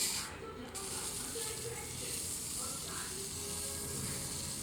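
CPU die being rubbed on fine P1500 sandpaper: a steady scratchy hiss, breaking off briefly just after the start and then resuming.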